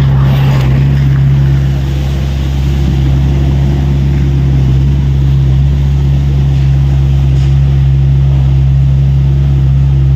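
Tata Hitachi EX70 excavator's diesel engine running at a steady, even speed. A brief noisy rush comes in the first second.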